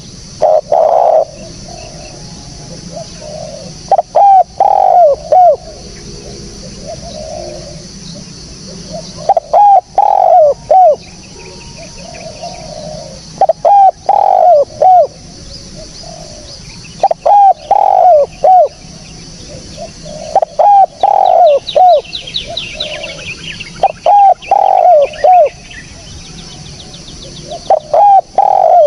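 Spotted dove cooing: a phrase of three or four low coos, repeated about every four seconds.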